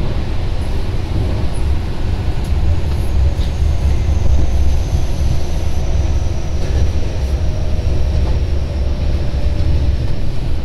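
Tobu 50070 series electric train running, heard from inside the car: a steady low rumble of wheels on rail, with a faint high whine that slowly drops in pitch.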